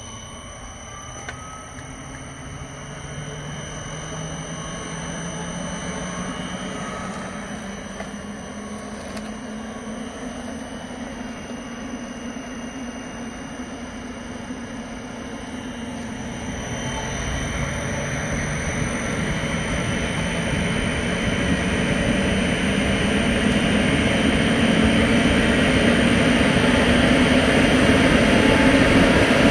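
Ventilation unit's electric motor and direct-drive plug fan run up on a variable-frequency drive: a motor whine rises in pitch while the fan's rushing air grows steadily louder, getting louder still from about halfway through.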